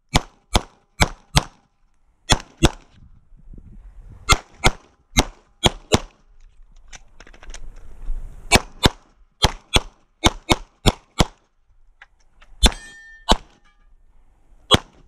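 Rapid 9mm pistol fire from a Glock 17 MOS: about twenty shots, mostly in quick pairs a third of a second apart, in strings with short pauses between. Near the end two shots are followed by a brief ringing clang, typical of struck steel targets.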